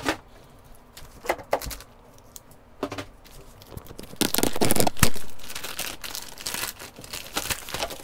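Clear plastic bag crinkling and rustling as it is opened and the paper manual and sticker sheets are pulled out, with scattered crackles and a loud stretch of about a second around four seconds in.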